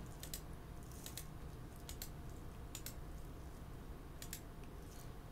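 Computer mouse button clicking as photos are paged through: about five faint sharp clicks, several heard as quick press-and-release pairs, spaced roughly a second apart over a low steady room hum.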